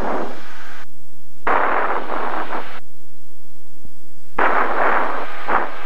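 Aircraft radio static from the tower frequency: three rushes of hiss, each about a second long, with short breaks between them.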